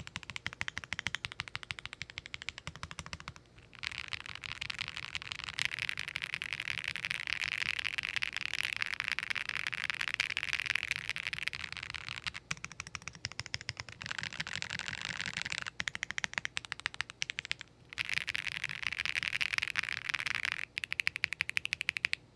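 Mechanical keyboard with Akko x Monsgeek Green Fog heavy linear switches in a Tofu60 top-mount case with only case foam, typed on in a fast, dense stream of keystrokes with short pauses about three and a half, sixteen and eighteen seconds in. The sound is fairly muted.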